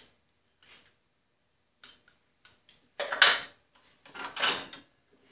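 Workshop handling noise: a few faint clicks, then two louder clattering knocks about three and four and a half seconds in, as the tipped-up riding mower and gear around it are moved.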